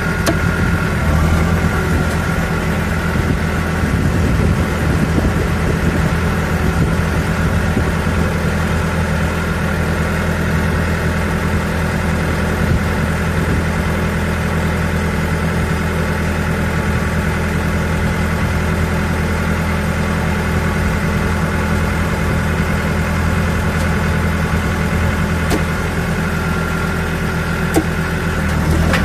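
Caterpillar 420D backhoe loader's four-cylinder diesel engine running at a steady speed as the machine drives along, heard from the operator's seat.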